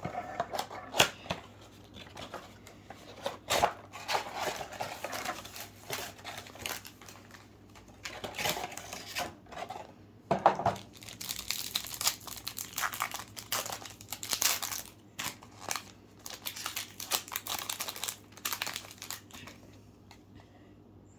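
A 2020 Chronicles football card pack's wrapper being torn open and crinkled, with the cards inside handled: irregular crackles, rips and rustles that die down near the end.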